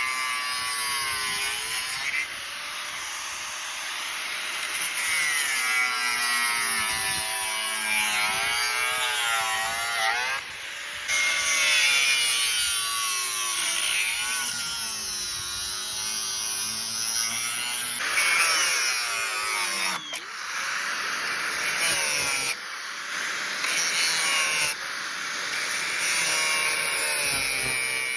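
Angle grinder cutting through the steel shell of a car's diesel muffler: a motor whine that sags and rises in pitch as the disc bites into the metal, over a harsh grinding hiss, with a few brief let-ups.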